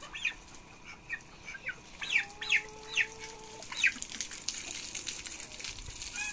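A white turkey peeping over and over, a string of short high calls, while it is held and bathed under a garden hose; water splashes and runs in the second half.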